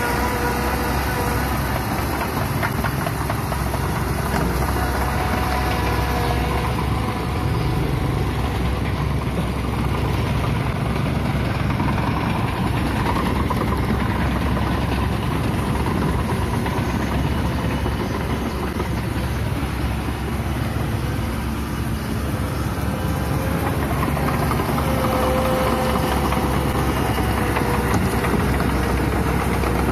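Engine of a yellow tracked tractor running steadily, with a faint higher whine that comes and goes.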